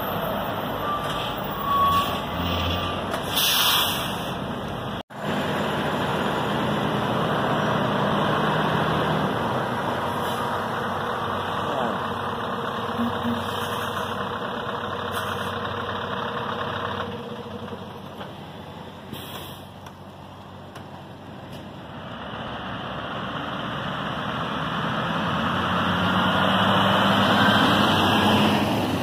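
Diesel engines of Scania lorry tractor units: one pulling slowly past close by with two short hisses of air, then lorries running at idle. Near the end an articulated lorry drives past on the road, growing louder as it nears.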